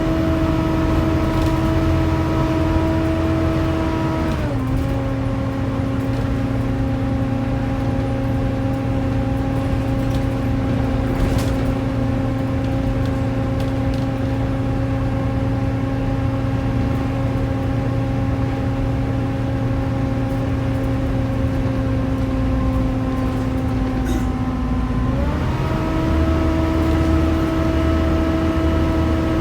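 Volvo B7TL double-decker bus driving, its engine and driveline giving a loud, steady vacuum-cleaner-like whine, the 'hoover' sound these buses are known for. The whine steps down in pitch about four seconds in, holds level, and climbs back up near the end as the bus changes speed.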